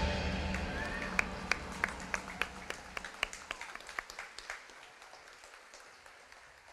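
The closing music of a stage performance dies away over the first few seconds while an audience claps sparsely; the scattered claps thin out and stop about five seconds in.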